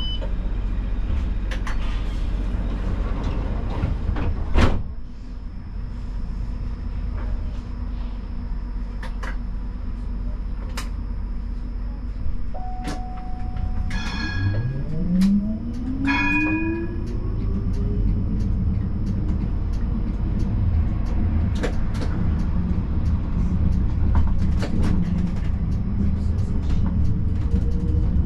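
Siemens Combino tram standing with a steady low hum, then a few short electronic chimes about halfway through. After the chimes its electric traction drive sets up a whine that rises steadily in pitch as the tram pulls away and gathers speed.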